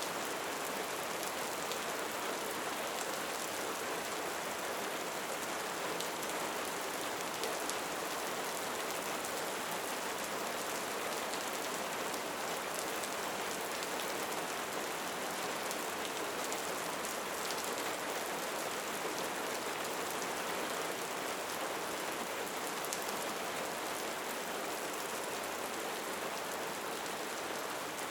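Steady rain falling: an even, unbroken hiss with a fine patter of drops and no change in strength.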